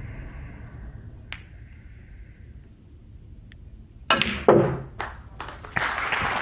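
Quiet snooker arena, then sharp clicks of snooker balls as a shot is played about four seconds in, followed by audience applause starting near the end.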